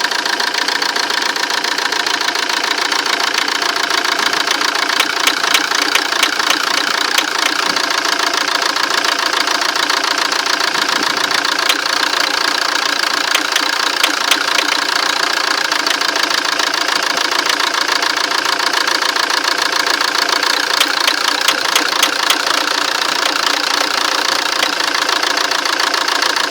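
Fiat Doblo 1.9 JTD common-rail diesel engine idling with sharp knocks repeating over the running sound. The owner takes the knock to be most likely a knocking injector.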